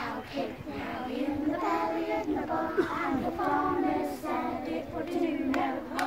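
Young children and adult leaders singing a campfire song together as a group.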